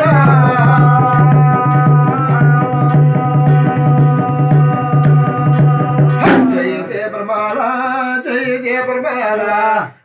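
Garhwali jagar folk singing over a steady beat on a rope-laced hand drum. About six seconds in, the drum stops and the singing breaks into shorter phrases that move in pitch.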